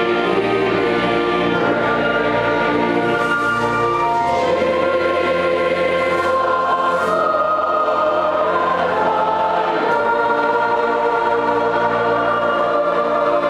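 Large mixed choir of adults and children singing together, with low sustained bass notes beneath that change every few seconds.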